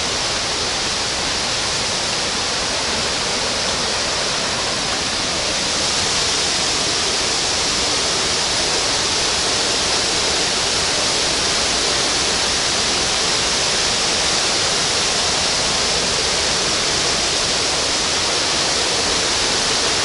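Voevodyn waterfall, its water rushing in a loud, steady roar. The roar grows a little louder about six seconds in.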